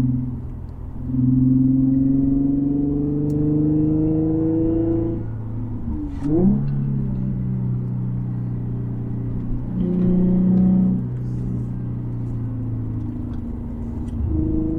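Infiniti G37S sedan's V6 engine with aftermarket exhaust pulling under acceleration, its note rising for a few seconds, then dropping in pitch at a gearshift about six seconds in. It cruises steadily, swells briefly around ten seconds, and starts climbing again near the end.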